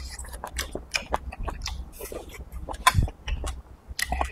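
Close-miked chewing of a mouthful of stewed lamb: a string of short wet clicks and smacks from the mouth, with one louder knock about three seconds in.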